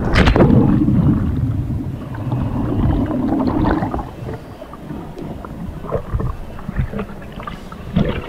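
A person jumping off a rock into a river: a sharp splash on hitting the water, then about four seconds of low, muffled rushing water, then lighter, broken splashing as he swims at the surface.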